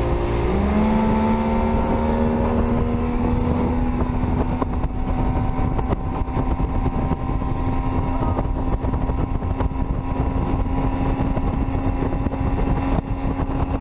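Mercury 75 hp outboard motor driving a bass boat under way. Its pitch rises briefly about half a second in, then holds steady over a constant rush of noise.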